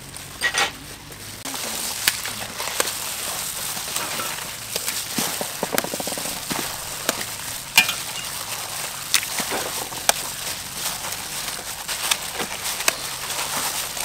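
Gloved hands squishing and mixing a wet filling of glass noodles and minced pork in a steel bowl: a steady crackly rustle of plastic gloves and noodles with many small clicks. A sharp crack comes about eight seconds in, as an egg is broken into the mix.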